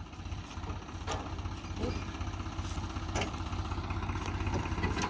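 A diesel engine idling with a steady low throb, with a few faint knocks.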